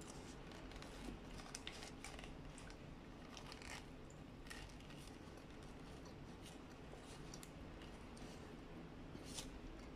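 Faint chewing and biting into a burger, with short crisp crinkles of its paper wrapper, most of them in the first few seconds and one more near the end.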